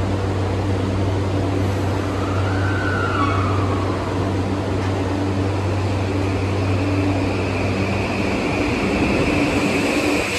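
Tokyu 2020 series electric train pulling out of a subway station, its Mitsubishi full-SiC VVVF inverter giving a steady high whine from about halfway on, with a rising motor tone near the end as it gathers speed. A steady low hum runs underneath.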